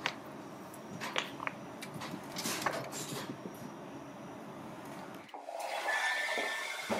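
Outdoor street noise with a few sharp clicks and knocks from a cargo bike being stopped and parked on cobblestones. About five seconds in, the sound changes to a quieter indoor room as a shop door is opened, with a steady high tone.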